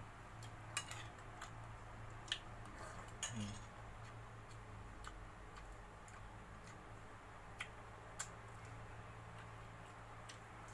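Faint eating sounds of a man eating fried gourami by hand from a plate: a few scattered mouth and finger clicks while chewing, over a steady low hum.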